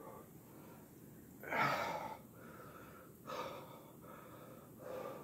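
A man breathing hard, winded from push-ups: three heavy breaths, the first about one and a half seconds in and the loudest.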